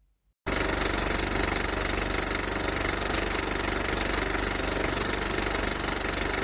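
Outro card soundtrack: a loud, dense, steady rumble with a fast flutter, cutting in abruptly about half a second in after near silence.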